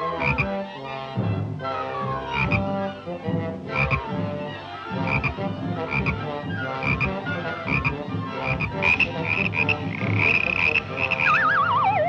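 Orchestral cartoon underscore with punchy staccato brass and woodwinds, regular sharp accents and quick falling runs, ending in a wavering falling whistle-like glide.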